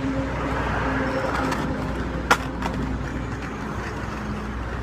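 RipStik caster board's wheels rolling over paving stones, a steady rumble, with one sharp clack about two seconds in.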